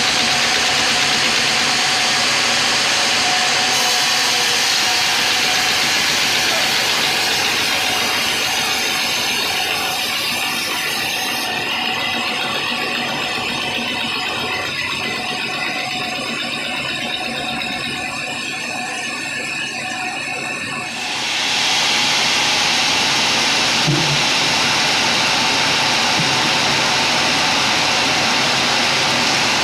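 Industrial band sawmill running, its blade cutting lengthwise through a teak log with a loud, steady mechanical noise. About two-thirds of the way in the noise abruptly becomes louder and brighter.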